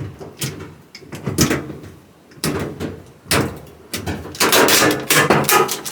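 Clunks and knocks of a dryer's sheet-metal door being handled and pulled free after its screws are out, with a longer scraping rattle about four and a half seconds in.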